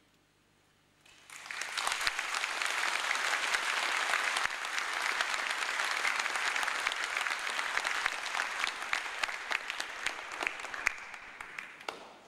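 Concert-hall audience applauding: the clapping starts about a second in, builds quickly to a steady, dense ovation with sharp individual claps standing out, and thins a little near the end.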